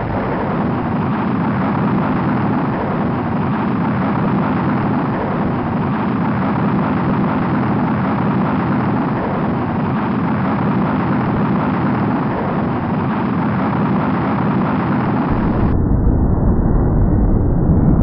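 Space rocket engine firing, a loud steady rumble. About 16 s in, the sound abruptly turns duller and deeper.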